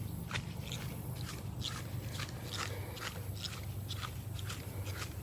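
Footsteps crunching on dry ground, about two steps a second, over a steady low rumble.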